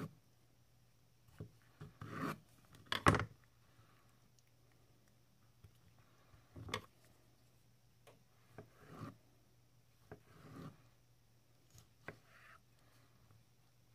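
Santoku kitchen knife slicing a tomato on an end-grain wooden cutting board: scattered soft cuts, rubs and taps of the blade on the wood, with one sharp louder knock about three seconds in. A faint steady hum sits underneath.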